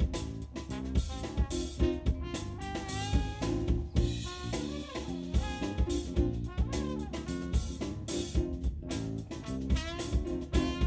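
Live stage band playing a funk tune: a busy drum-kit groove under melodic horn-section lines.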